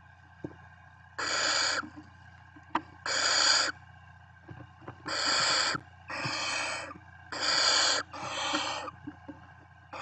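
Barn owl chicks giving their rasping, hissing 'snoring' calls, the food-begging call of barn owl nestlings: six hisses of about half a second each, the last four in two quick pairs. A steady low hum runs underneath.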